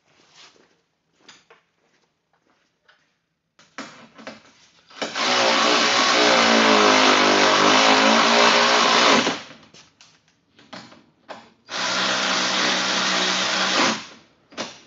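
Handheld cordless power tool running in two long bursts, about four seconds and then about two seconds, its motor pitch dipping and rising during the first, while fasteners are driven in assembling an ATV. Light handling clicks come before it.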